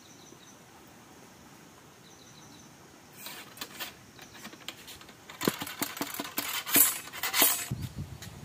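Light metallic clicks and clinks from handling a muzzle-loading gun and its metal ramrod, starting about three seconds in and turning into a quick rattle of clicks and scraping near the end.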